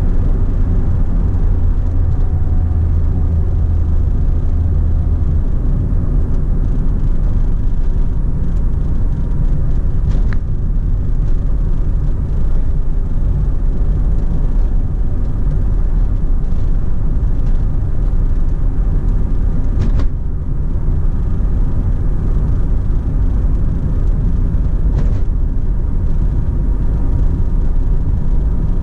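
Inside the cabin of a Perodua Myvi 1.5 driving at steady road speed: a constant low rumble of engine and tyre noise. A few faint clicks come through about ten, twenty and twenty-five seconds in.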